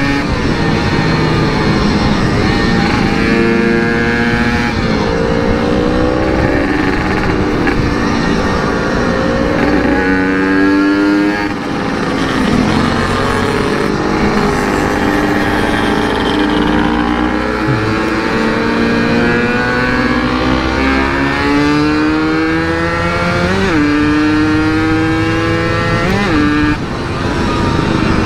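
Yamaha RX-King 135 cc two-stroke single with an aftermarket CRC exhaust, revving up and easing off again and again while being ridden, its pitch climbing through each gear and dropping back.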